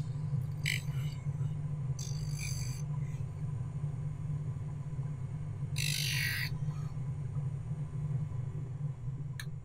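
Bench-mounted drum sander's motor running steadily with a low hum while a silicone toe splint is trimmed on the sanding drum. A few short high-pitched squeaks come and go over it.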